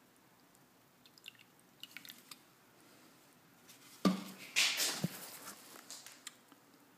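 A few faint clicks, then a sharp knock about four seconds in followed by about a second of rustling and scraping: handling noise as the bottle is put down and the camera is moved.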